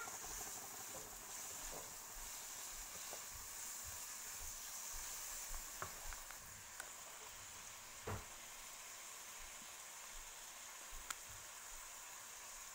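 Sliced cabbage, green pepper and tomato sizzling in oil in a pan, with a steady hiss and a few light knocks of a wooden spatula against the pan, the sharpest about eight seconds in.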